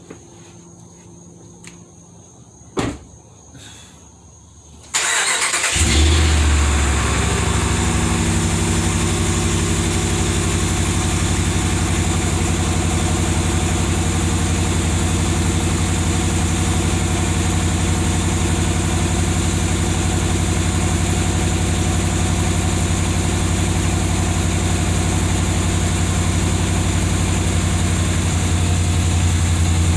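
2020 Ram 1500's 5.7-litre HEMI V8 cold start: a single sharp click about three seconds in, then the engine starts suddenly about five seconds in and settles into a loud, steady cold idle.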